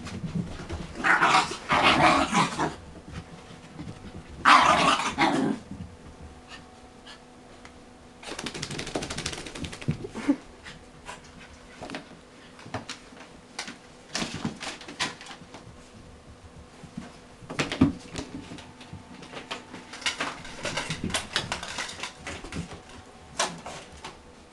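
Two small dogs, one a dachshund puppy, play-fighting with barks and yips. There are two loud bursts in the first six seconds, then shorter scattered bursts and scuffling.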